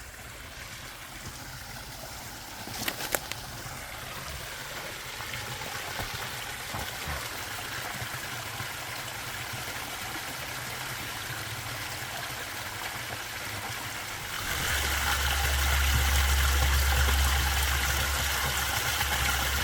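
Creek water running over a small waterfall, a steady rushing. A couple of sharp clicks come about three seconds in, and near the end the water sound jumps louder with a low rumble added.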